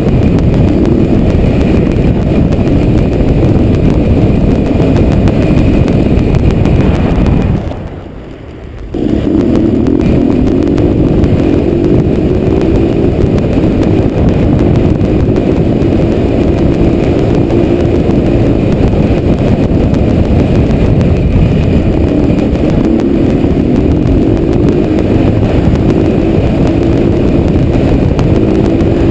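Motorcycle engine heard from a helmet-mounted camera while riding, under a heavy rush of wind on the microphone, its pitch climbing in stretches as it accelerates. The level drops briefly about eight seconds in.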